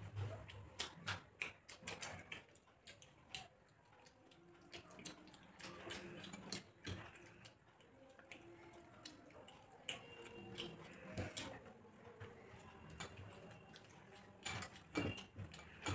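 Close-up eating sounds from people eating rice and curry by hand: wet chewing, lip-smacking and mouth clicks, with fingers squishing and mixing rice on a plate.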